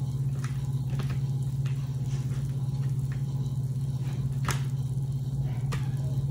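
A steady low hum runs throughout, with a few light clicks and taps as food is handled and set down on plates, the sharpest about four and a half seconds in.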